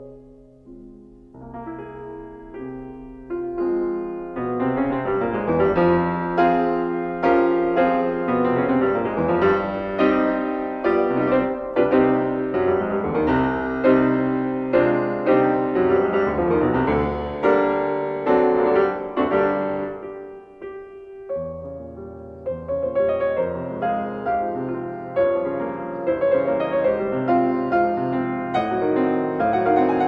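Background piano music, soft at first and fuller from about four seconds in, with a brief lull about two-thirds of the way through.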